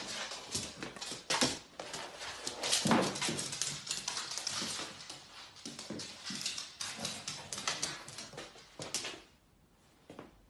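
A senior Staffordshire bull terrier at play, making a dense run of short, sharp noises that die down about nine seconds in.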